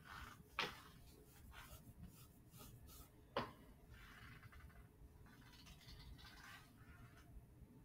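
Near silence: faint room tone with scattered small ticks and scratches, and two sharper clicks, one just after the start and one about three and a half seconds in.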